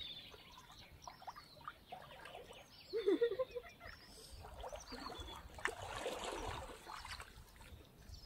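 Shallow river water splashing and trickling as a serval wades through it toward the bank, with denser splashing about two-thirds of the way through. Small birds chirp in the background, and a short wavering call sounds about three seconds in.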